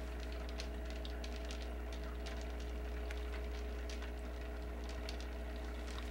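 Quiet room tone: a steady low electrical hum with a few faint steady tones above it, and scattered faint clicks and crackles.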